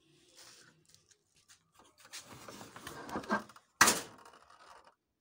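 Handling noise from a photocopier's plastic covers and parts: scattered light clicks, then rustling and scraping from about two seconds in, and a single sharp knock just before four seconds.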